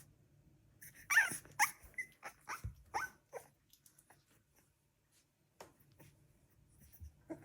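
Three-week-old Staffordshire bull terrier puppy making a run of short, high squeaks and yelps, the loudest about a second in, with a few fainter ones near the end.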